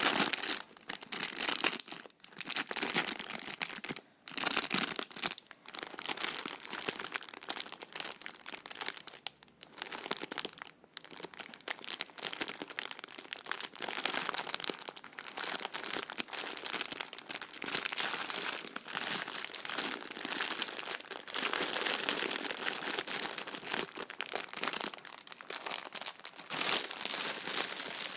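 Clear plastic film bag of cheese-flavoured snack biscuits being crinkled and squeezed by hand: irregular plastic crackling with a few brief pauses.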